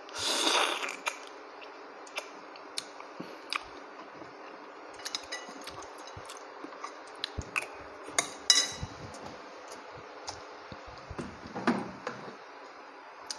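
Eating boiled mussels with rice: scattered light clicks and clinks of mussel shells and of a spoon on a plate. A brief louder noise comes at the start and another near the end.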